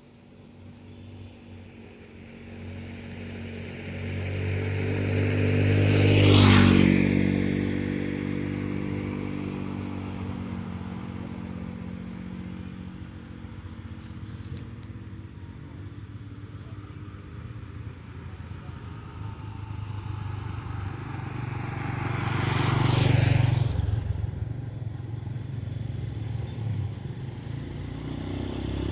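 Motor vehicles driving past one at a time. Each engine hum grows louder, peaks with a rush of tyre and wind noise as it passes, about six seconds in and again about two-thirds of the way through, then drops in pitch as it fades; another is approaching near the end.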